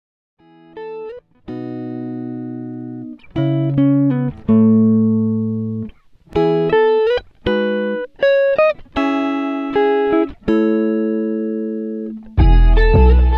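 Background music: a gentle melody of plucked, guitar-like notes and chords, starting about half a second in. Near the end a louder, fuller passage with a heavy bass comes in.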